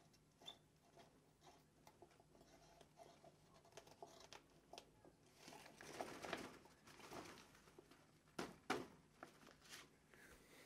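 Faint rustling and scattered small clicks as an overhead studio lamp is handled, with two sharper taps near the end.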